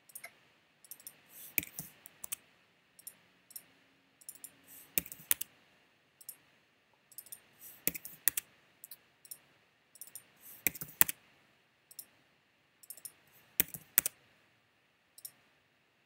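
Computer mouse clicks and keyboard keystrokes, coming irregularly in small clusters of a few sharp clicks with short pauses between.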